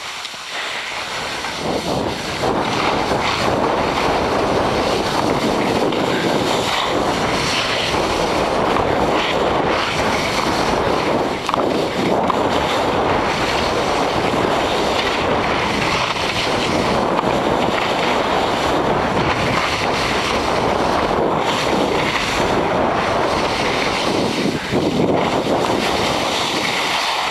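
Steady rushing noise of skis sliding and scraping over the snow during a downhill run, mixed with wind buffeting the microphone.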